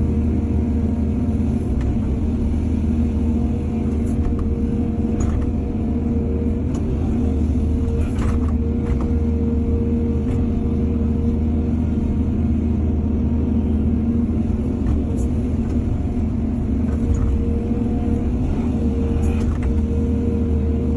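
Heavy diesel engine of an excavator running steadily under load, with a steady whine over it and a few short knocks, around four, five and eight seconds in.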